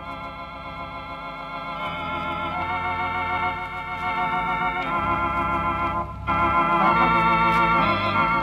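Background music: an instrumental organ passage of held chords with a warbling vibrato, changing chord every second or so and swelling louder toward the end.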